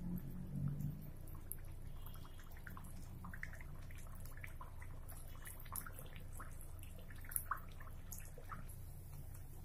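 Potato puri deep-frying in hot oil, the oil sizzling and crackling with scattered small pops, a few of them sharper.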